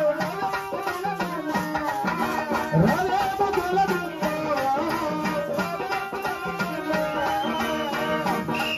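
Indian folk music with a fast tabla-like drum beat under a gliding melody, played on an electronic keyboard rig for a stage dance.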